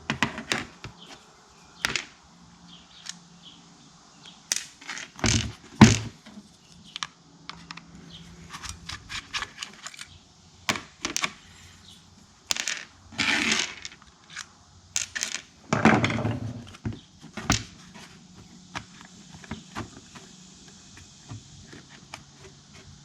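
Irregular clicks, taps and scrapes of plastic housing parts and small metal pieces being handled as a Dremel rotary tool is taken apart by hand, with two louder knocks about five seconds in and short scraping rustles later on.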